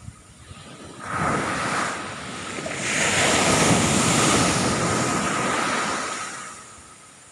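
Ocean wave breaking on the beach: a rush of surf that rises about a second in, swells to its loudest in the middle and fades away near the end.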